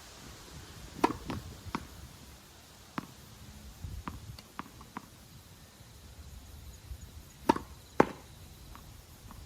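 Tennis ball being struck by a racket and bouncing during serve practice: a string of sharp pops and lighter knocks, with the two loudest, half a second apart, near the end.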